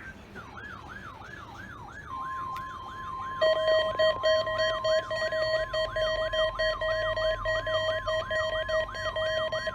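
Electronic alert tones from weather-radio receivers. A warbling siren repeats about two and a half sweeps a second. About two seconds in, the steady NOAA Weather Radio 1050 Hz warning alarm tone joins it. About a second later a lower steady alarm tone comes in, pulsing in loudness.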